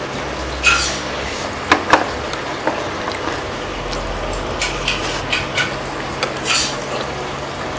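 Metal fork clinking and scraping against a small bowl, with mouth sounds of eating. The sharp clinks come several times, the loudest two close together about two seconds in, over a steady hiss.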